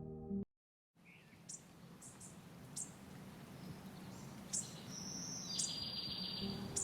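Faint birds chirping, a few short high calls scattered over a quiet outdoor background hiss. A snatch of soft ambient music cuts off just before, in the first half-second.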